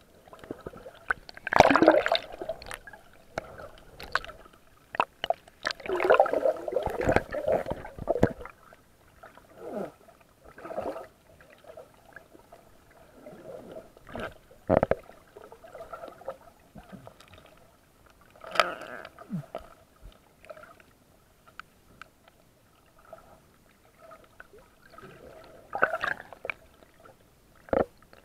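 Water sloshing and gurgling around a camera, with irregular rubbing and knocking bursts from the camera being handled, loudest about two seconds in and again around six to eight seconds.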